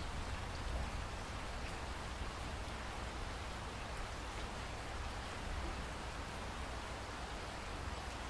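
Steady gentle rain falling, an even hiss of many drops with no pauses, over a low rumble.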